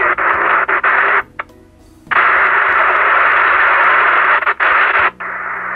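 President Lincoln CB radio's loudspeaker hissing with static and interference from strong signals picked up on a rooftop base antenna. The noise cuts out for about a second near the start, comes back at full strength, and drops to a quieter hiss near the end.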